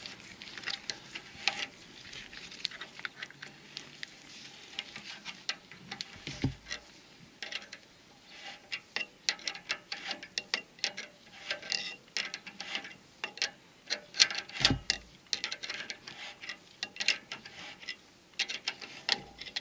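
Irregular metal clicks and ticks of needle-nose pliers turning the slotted axle nut inside a truck's rear hub, with two dull low thumps about six and fifteen seconds in.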